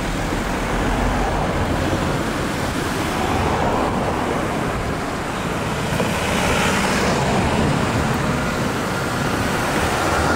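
Cars and vans passing one after another, the engine and tyre noise swelling as each goes by, with a brief knock about six seconds in.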